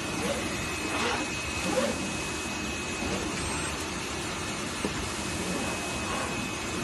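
CNC oscillating knife cutter running as it cuts a sheet of paper: a steady machine hum with a thin, steady high whine.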